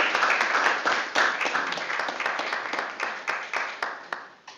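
Audience applauding with dense, fast claps that thin out and die away near the end.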